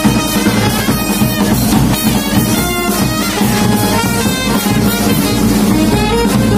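Band music with brass and drums, playing at a steady loud level with regular drum beats.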